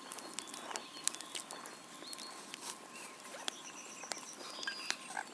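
Bonfire crackling: irregular sharp pops and snaps, a few each second, over a faint hiss.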